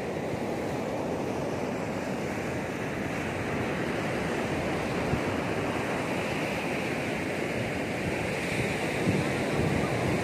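Ocean surf breaking and washing up a sandy beach in a steady rush of noise, with wind blowing across the microphone.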